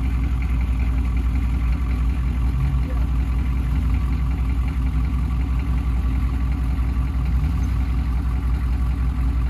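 Lifted square-body Chevy K5 Blazer's engine idling steadily.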